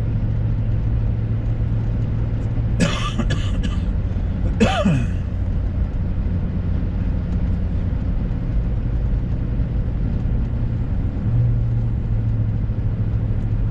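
Steady engine and road noise heard inside a truck's cab while driving, with a person coughing or clearing their throat twice, about three and five seconds in.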